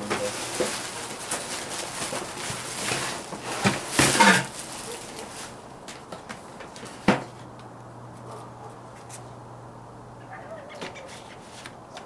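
Plastic air-pillow packing and a cardboard shipping box rustling and crinkling as a boxed motherboard is dug out, loudest about four seconds in. One sharp knock about seven seconds in, then it goes quieter.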